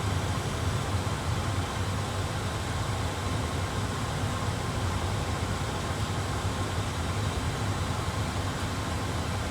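Steady cockpit background noise of an A320 flight simulator: an even hiss of airflow and fans over a low hum, with no changes.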